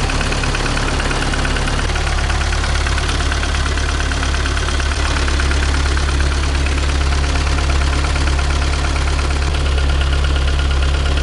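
VAZ 2110's 8-valve four-cylinder engine idling steadily as it warms up. It runs none too quietly, which the owner puts down to a camshaft with play in it.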